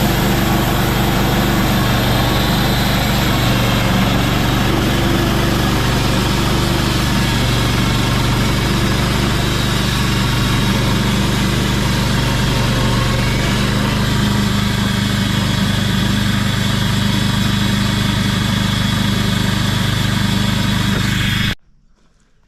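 Gasoline engine of a Harbor Freight portable band sawmill running at a steady speed while it saws a pine log. The sound cuts off abruptly near the end.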